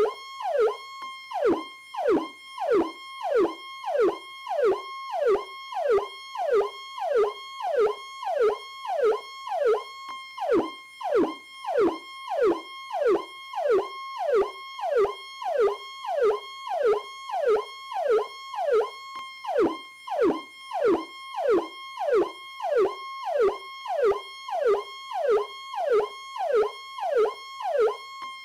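Powercall police siren sounding in a fast repeating pattern: a steady high tone held under quick falling sweeps, each starting with a click, about one and a half a second.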